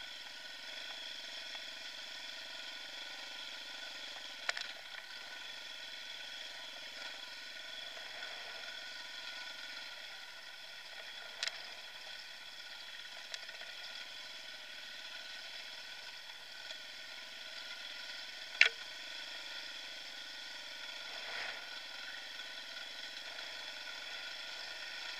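Dirt bike engine running steadily at a fairly even speed while riding rocky singletrack, with a few short sharp knocks over the ride, the loudest about two-thirds of the way through.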